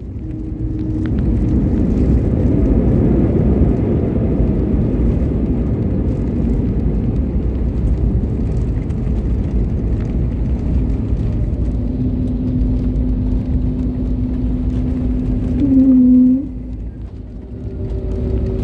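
Jet airliner slowing on the runway just after touchdown, heard from a cabin window seat over the wing: a steady rushing roar of the engines, most likely in reverse thrust, and of the rollout. About sixteen seconds in the roar drops away sharply with a short bend in pitch, leaving a steadier, quieter engine hum.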